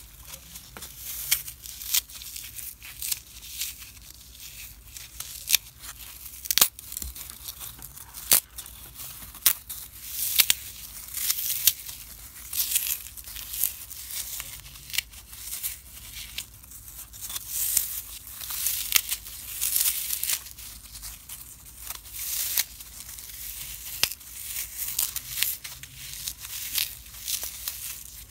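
Dry, unsoaked green floral foam crushed and broken apart by hand: dense, irregular crunching with many sharp crackles.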